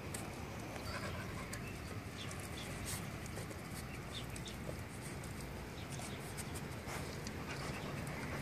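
Dogs' claws ticking on asphalt as they move about, heard as scattered light clicks over a steady background noise.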